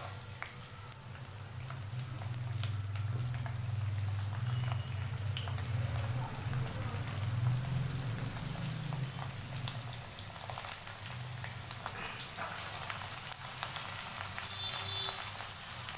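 Soaked split chickpeas (chana dal) sizzling and crackling as they fry in a shallow layer of hot mustard oil in a metal wok, with a steady low hum underneath.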